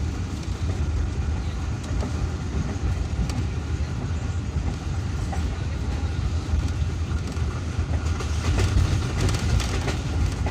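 Passenger train running at speed, heard from inside the coach: the steady, low noise of the wheels on the rails. It gets a little louder about eight seconds in.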